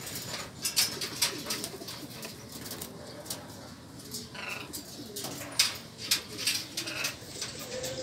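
Doves cooing softly and low, with many short sharp clicks and rustles scattered through.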